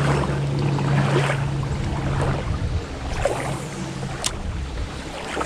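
A kayak moving along shallow creek water, with soft water noise around the hull. A steady low hum runs underneath and fades out about two and a half seconds in, with a fainter, lower one lasting until about four seconds in.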